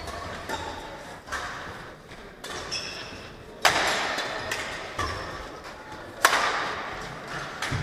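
Badminton racket strokes on a shuttlecock during a rally: sharp cracks that echo through the large hall, the two loudest about two and a half seconds apart, with lighter knocks and footfalls between them.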